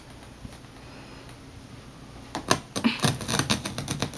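Carpet knife cutting along a row through the backing of a nylon frieze carpet. After about two seconds of near-stillness, a quick run of crisp snapping clicks starts as the blade works through the backing.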